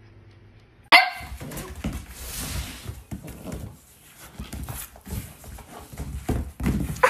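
A short, sharp animal cry about a second in, then irregular scuffling and soft thumps as a lamb and a puppy move about on a rug and wooden floor.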